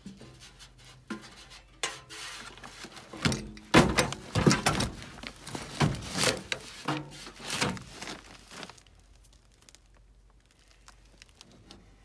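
Handling noise inside a gas furnace cabinet: the wiring harness being pulled and pushed about, with rustling, clicks and a few knocks against the sheet metal. It dies away after about eight and a half seconds.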